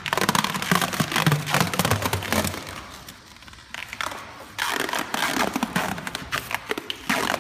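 Liquid vinyl (peelable sprayed rubber coating) being peeled by hand off a car's painted body panel. It gives a dense crackling as the film tears and lifts from the paint, easing off for about a second and a half near the middle before picking up again.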